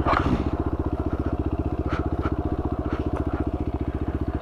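Motorcycle engine idling with a steady, even pulsing beat, with a few faint ticks over it.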